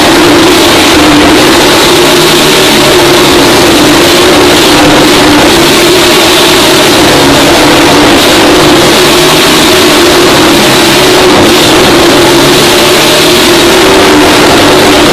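Motorcycle engine running hard and steadily as it circles the wooden Wall of Death drum, so loud that the recording is overloaded.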